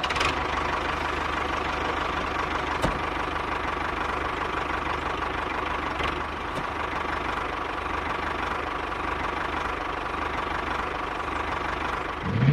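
Steady engine-like running drone of a DIY mini tractor as it drives, with a fast even low pulse and a couple of faint clicks.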